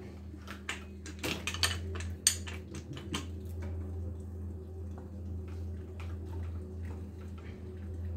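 Metal clinks and knocks from hand tools working on a bicycle frame at the bottom bracket, a quick cluster in the first three seconds with one sharp knock the loudest, then only scattered light ticks. A steady low hum runs underneath.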